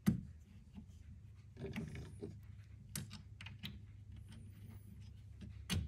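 Small metal clicks, taps and scraping of a steel clevis pin and cotter pin being fitted through an aluminium actuator mounting bracket, with a sharp click at the start and another near the end.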